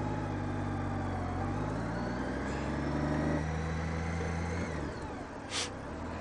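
Honda Goldwing F6B's flat-six engine pulling under way, its pitch rising gently, with a step about halfway through, then dropping away as the throttle eases near the end. A brief hiss follows shortly after.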